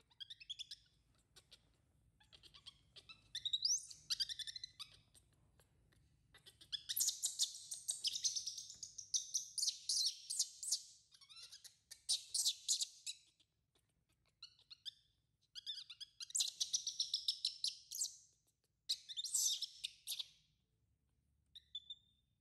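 Baby monkey crying in shrill, high-pitched chirping squeals that come in bouts with short pauses between. The longest and loudest bout runs from about seven to eleven seconds in.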